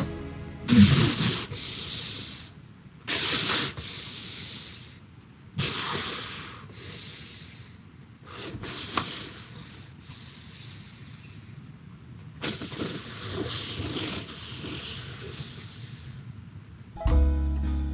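A man's hissing, sputtering breaths through a mouthful of foam, in several noisy bursts, the loudest about a second in. Music starts near the end.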